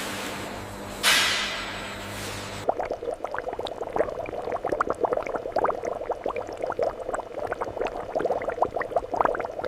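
Liquid rushing, with a sudden surge about a second in. Then, after an abrupt change near three seconds, thick liquid bubbling and popping irregularly.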